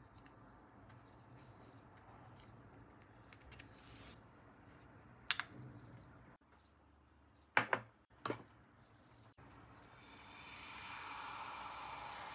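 Small metal lighter parts handled on a workbench, with faint ticks and three sharp clicks, then a steady hiss starting about ten seconds in.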